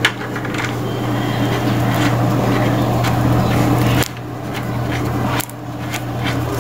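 A steady low hum, with faint clicks and rubbing as a router antenna is handled and screwed onto its rear connector.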